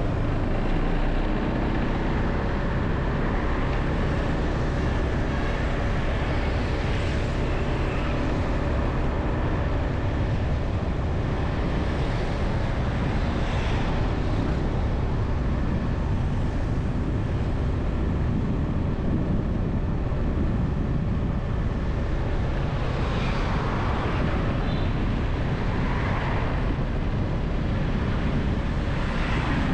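Street traffic heard from a moving vehicle, with a heavy steady rumble of wind on the microphone. Other vehicles swell past every few seconds.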